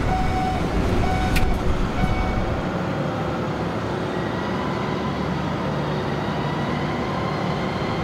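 Steady mechanical rumble of container-port machinery such as ship-to-shore cranes. For the first couple of seconds a short warning beep repeats about once a second, with a single sharp click among them.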